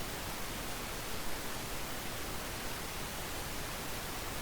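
Steady, even hiss with no distinct sounds in it: the recording's background noise, or room tone.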